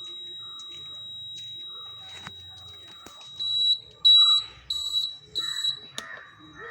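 Honda Activa 125 scooter's indicator buzzer sounding: a faint continuous high tone, then about halfway through four louder high beeps at roughly one and a half a second. The buzzer keeps sounding even with the indicator switch off, a sign of water in the indicator switch or flasher relay after washing.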